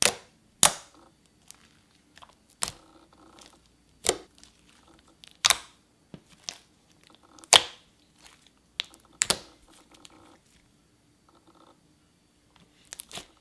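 Thick green slime being poked and pressed with the fingers, giving sharp clicking pops every second or two with soft squishing between them. The clicks stop near the end.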